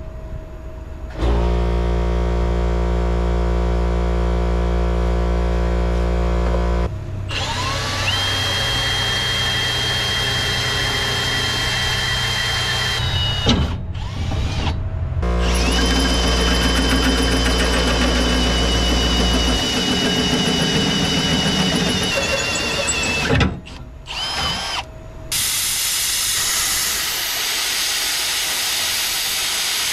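Power drill boring into steel plate in several separate runs, a steady high whine over a low motor drone. Near the end a plasma cutter hisses steadily as it cuts through the steel.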